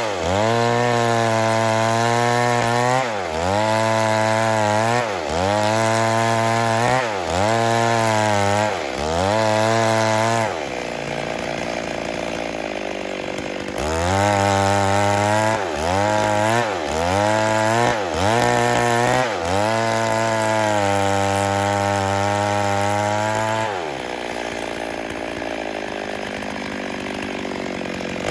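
Stihl MS 382 two-stroke chainsaw cutting wood. The engine's pitch dips and recovers about once a second as the chain bites under load. Twice it eases off to a quieter, steady run for a few seconds before cutting again.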